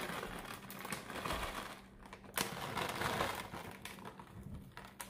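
Plastic bag crinkling and rustling as raisins are shaken out of it into a pan of raw ground-pork mixture, with a few sharper crackles.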